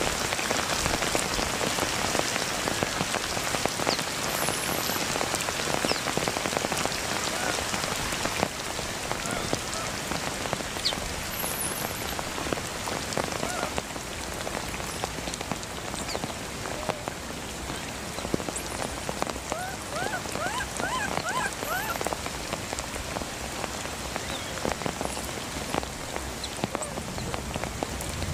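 Steady rain falling on grass and leaves, a dense patter of drops that eases slightly about eight seconds in.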